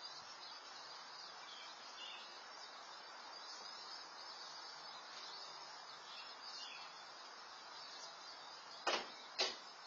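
Outdoor background through a security camera's microphone: a steady faint hiss with faint high chirps, then two sharp clicks about half a second apart near the end.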